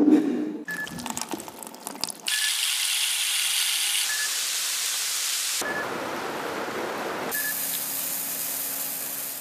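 A run of five short rain-like sounds, cut one after another, each starting with a short high chime. First a crackle, then a dense hiss, then pork belly sizzling on a grill pan, then heavy rain with road noise. Last, raw rice is poured into a metal bowl with a steady patter.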